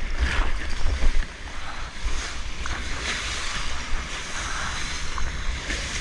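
Water rushing and splashing around a mini longboard surfboard as it rides a small breaking wave, with wind rumbling on the microphone.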